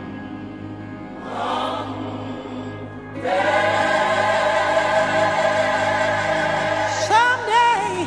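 Background choir music: voices hold a long chord that swells louder about three seconds in, and near the end a voice slides up and down in pitch.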